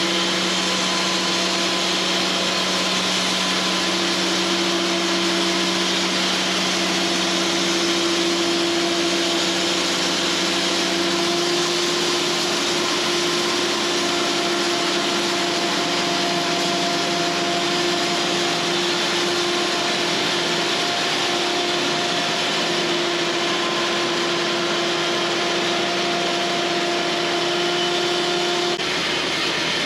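Cooks AC36 bandsaw sawmill running steadily, its blade cutting through pine. The steady hum shifts about eleven seconds in, and part of it drops away about a second before the end.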